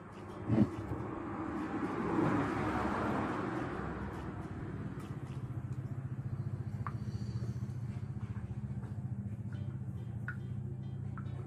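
A motor vehicle passes, swelling and fading over the first few seconds, then an engine runs on with a steady low pulsing hum. A sharp thump sounds just after the start, and a few light clicks follow later.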